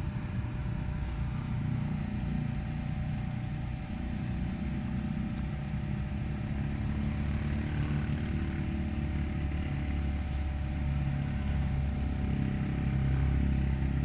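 An engine running steadily, a low hum whose pitch wavers slightly.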